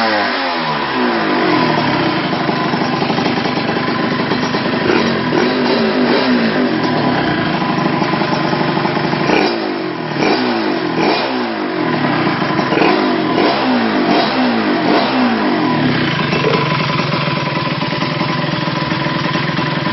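Honda LS125 two-stroke motorcycle engine breathing through an aftermarket WRC expansion-chamber exhaust, being revved in neutral. It drops back from a rev at the start, gets a run of quick blips that rise and fall in the middle, and runs steadier near the end.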